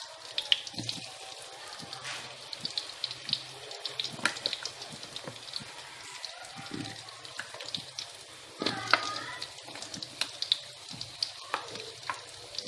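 Sweet potato and taro chunks sizzling in hot oil in a wok, with many small crackles and pops over a steady hiss. The sizzle gets louder for a moment about nine seconds in.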